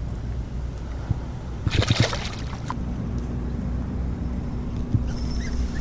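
Water sloshing and gurgling at the surface, with a brief, louder splash about two seconds in, over a steady low rumble.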